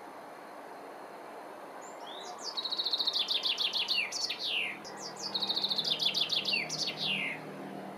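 A songbird sings two phrases, the first about two seconds in and the second about three seconds later. Each phrase is a fast run of repeated high notes that ends in a few downward-sliding notes. A faint low hum joins the steady outdoor background in the second half.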